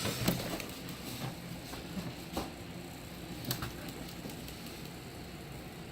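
A few light clicks and knocks from handling the plastic headlight assembly, a little over a second apart, over a faint steady hum.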